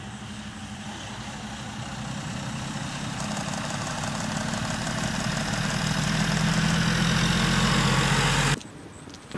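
Box truck's engine and tyres approaching along the road, the low engine note getting steadily louder as it nears, then the sound cuts off suddenly near the end.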